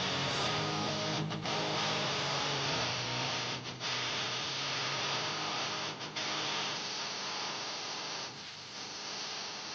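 Background music with guitar, getting quieter toward the end.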